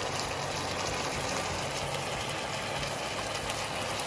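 Chicken pieces sizzling and simmering in their own juices in an enamelled cast-iron pan: a steady crackling hiss over a constant low hum.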